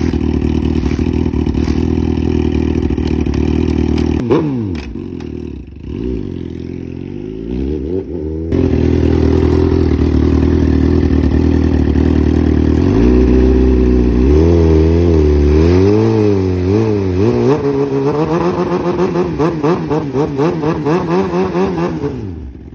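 Sport motorcycle engine running with its rear wheel spinning on a paddock stand, winding the tape onto the tyre. It is loud throughout. The revs sweep up and down over and over in the second half, and the engine dies down near the end.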